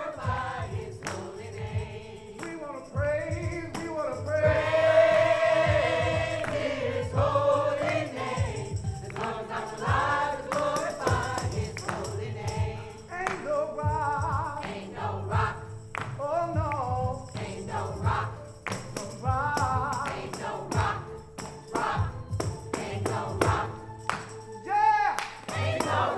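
A choir singing with musical accompaniment, voices holding long, wavering notes over a steady bass.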